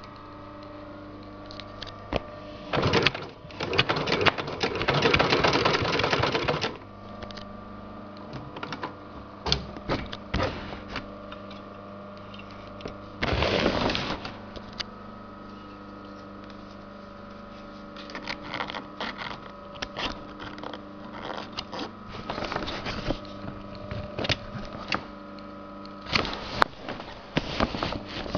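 Sailmaster 266-1 heavy-duty walking-foot zigzag sewing machine stitching through thick layered sailcloth and webbing in short runs of rapid clattering: a long run in the first seconds, another near the middle, then short stop-start bursts of a few stitches toward the end. A steady hum sounds between the runs.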